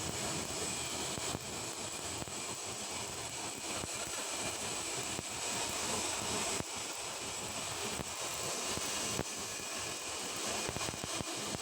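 Stick (SMAW) welding arc on carbon steel pipe: a steady hiss with fine crackle.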